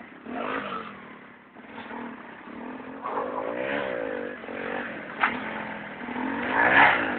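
Yamaha DT two-stroke motorcycle engine revving up and down, its pitch climbing and falling several times, loudest near the end. There is a brief sharp crack about five seconds in.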